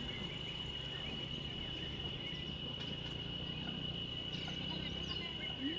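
A steady, high-pitched insect trill, like crickets, holding one pitch throughout over low outdoor background noise.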